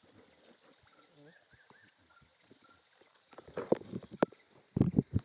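Shallow swamp water splashing and sloshing around a person wading waist-deep. The splashing comes in a few short, loud bursts in the second half, after a quiet start.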